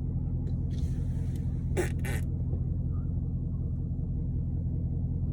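Steady low rumble of a car heard from inside the cabin, with two brief rustling noises about one and two seconds in.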